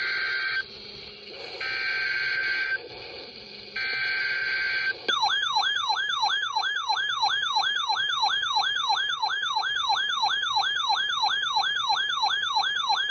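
Emergency Alert System SAME header: three buzzy bursts of digital data tones, about a second each and a second apart. About five seconds in, a weather radio's warning alarm starts, a loud warbling tone sweeping up and down about three to four times a second, signalling an incoming severe thunderstorm warning.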